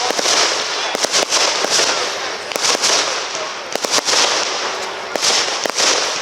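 Aerial fireworks display: a rapid string of sharp bangs, several a second, over a continuous crackling hiss.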